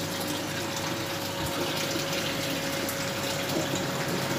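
Aquarium water pump running with a steady rush of moving water and a faint, even hum.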